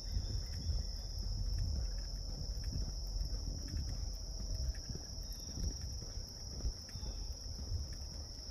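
A steady high-pitched chorus of insects such as crickets, over footsteps on the trail and a low rumble.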